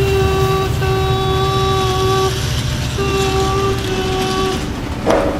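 Toy Thomas the Train sounding a whistle in three long steady notes over a constant low rumble, with a short sudden sound near the end.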